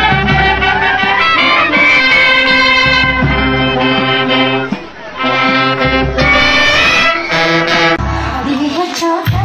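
Uniformed wind band of clarinets, saxophones, trumpets and other brass, with a bass drum, playing a tune. About five seconds in the music briefly dips. Near the end it changes to a different dance tune with a pulsing beat.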